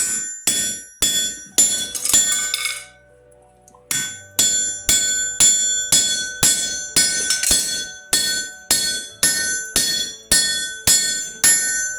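Hammer blows on steel on a ringing anvil: a few strikes, a pause of about a second, then steady blows about two to three a second, each leaving a bright metallic ring, as hot rebar is forged.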